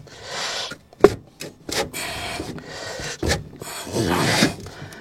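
Tyre bead and tyre iron scraping and rubbing against a scooter wheel rim in several short strokes while the tyre is levered on by hand, with a sharp clack about a second in.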